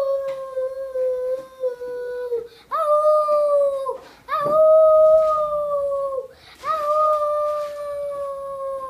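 A young child imitating a wolf howl with the voice: four long held howls, each sagging slightly in pitch at its end.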